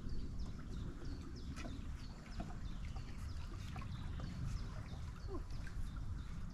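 Small birds chirping and singing, many short high notes, over a steady low rush of flowing river water.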